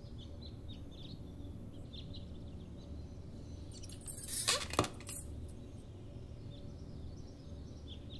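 Quiet background with faint high chirping in the first couple of seconds, then a brief rustling swish about four seconds in that ends in a single sharp click.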